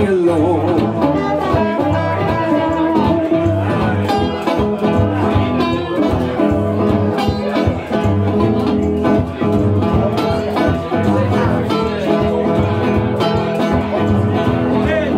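Live acoustic blues without vocals: a resonator guitar and an acoustic guitar picking and strumming a steady rhythm, with a harmonica playing held, bending notes over them.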